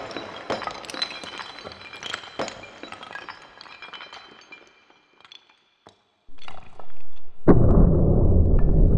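A stack of ceramic plates shattering under a giant drop hammer's three-tonne steel head: a crash, then many clinking, ringing shards that fade away over about five seconds. Near the end come a few more knocks, then a loud low rumble.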